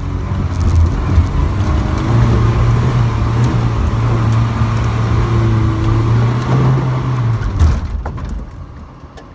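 Off-road 4x4's engine revved up and held at high, steady revs for several seconds under load, then easing off near the end.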